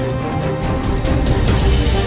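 Background music with a dramatic feel: sustained tones over heavy bass, with percussive hits.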